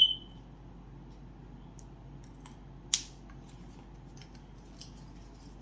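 Small cosmetic items being handled: a sharp click at the start with a short ring, a second sharp click about three seconds in, and faint light ticks between.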